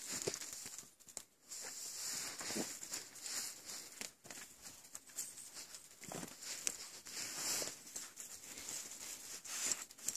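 Irregular rustling and footsteps of a walker and two leashed Akitas moving through grass and fallen leaves, with scattered soft crackles.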